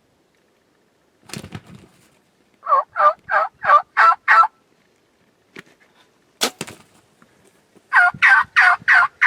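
Wild turkey calling in a quick run of six notes, then a single sharp crack of a bow shot about six and a half seconds in. Near the end a louder, faster run of turkey calls starts up.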